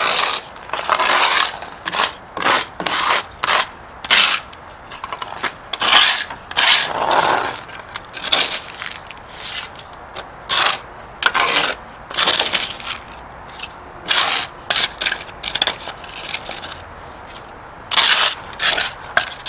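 Crumbly lead fragments from a broken-up lead-acid battery being scraped off a rubber mat with a small metal scoop and tipped into a metal bowl: a long run of short, irregular gritty scraping and rattling strokes with brief pauses between.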